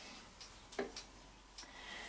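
A few faint clicks and light taps, one louder tap about a second in, from paint cups being handled and set down during pouring.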